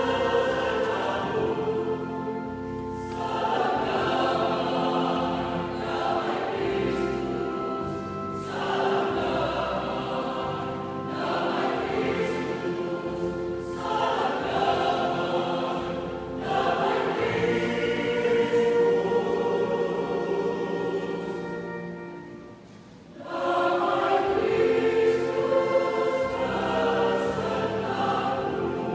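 A choir singing in parts, sustained chords sung in phrases with short breaks between them. About 22 seconds in, it sinks to a soft passage, then comes back in loudly.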